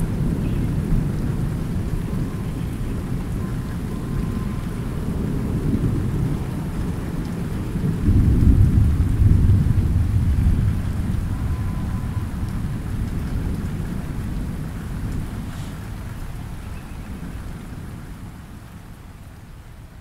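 Light rain falling on a pond under a long rumble of thunder. The thunder swells about eight seconds in, then slowly fades away, leaving mostly the patter of rain.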